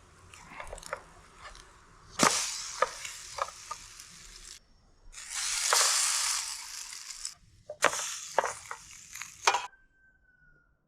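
French toast sizzling in a hot frying pan, with spatula scrapes and taps as the slices are flipped. The sizzle comes in three stretches that start and stop abruptly.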